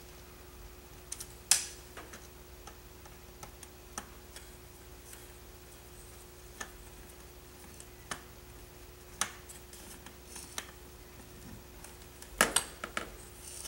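Scattered light clicks and taps of a small screw, lock washer and screwdriver being worked on a Bruder bulldozer model, with louder clicks about a second and a half in, past nine seconds and near the end.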